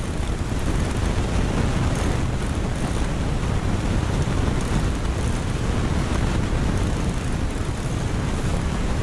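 Steady wind buffeting the microphone, a low rumble throughout.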